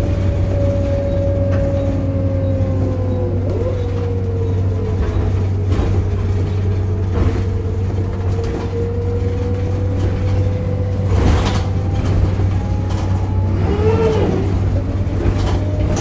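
Volvo B7RLE bus with Wright Eclipse Urban body heard from inside the cabin on the move: a steady drive rumble with a groaning whine running through it, which sinks a little in pitch a few seconds in and wavers near the end. Now and then the body gives a sharp knock or rattle.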